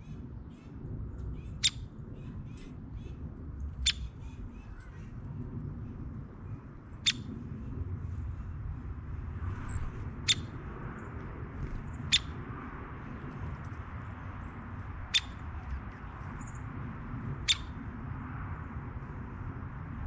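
A woodpecker at a suet feeder giving single sharp 'pik' notes, seven of them, spaced irregularly about two to three seconds apart, over a steady low rumble.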